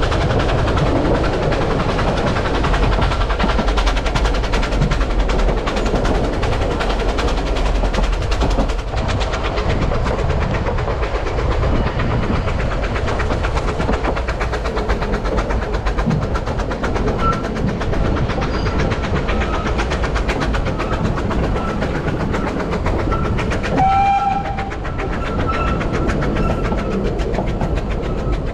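Narrow-gauge steam railway train heard from an open carriage, running steadily along the track with the rumble and clatter of wheels on rails. Faint intermittent high squeals come and go in the second half, and a short, clearer tone sounds once near the end.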